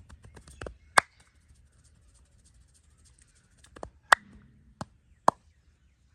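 Hand massage strokes as a fast, light patter of taps, about ten a second, broken by sharp, loud cracks: the loudest about a second in, then three more between four and five and a half seconds in.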